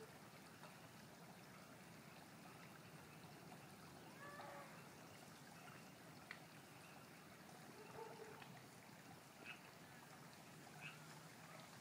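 Faint steady trickle of a creek, with a few short frog calls scattered through it.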